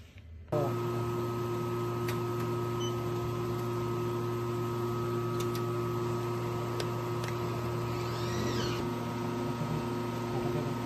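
Laser welder's water chiller switched on about half a second in, then running with a steady hum, with a few faint clicks over it.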